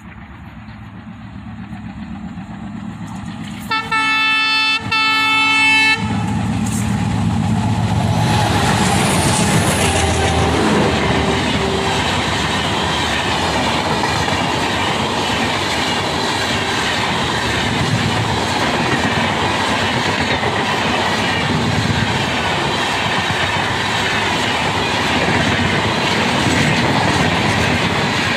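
An approaching Rajdhani Express sounds its locomotive horn about four seconds in, in about two seconds of blasts with short breaks. Then comes the steady rush and wheel clatter of its LHB passenger coaches passing close at speed.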